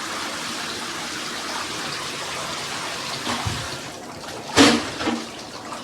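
Water from a shower running in a steady hiss that eases off about four seconds in. A dull thud follows, then a sharp knock near the end, the loudest sound.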